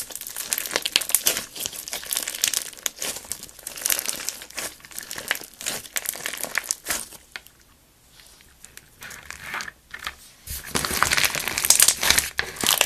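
Slime being squeezed, stretched and poked in the hands, with dense crackling pops of trapped air. It goes quiet a little past halfway, then comes back louder and denser near the end.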